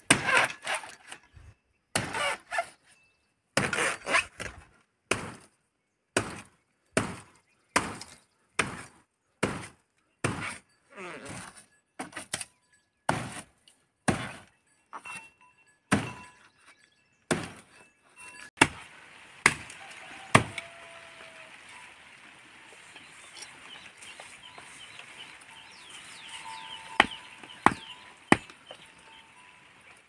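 Knife and sickle blade hacking into the fibrous base of a young fan palm: a steady run of sharp chopping strikes, about one and a half a second. About two-thirds of the way in they thin out to a few scattered strikes over a faint background hiss.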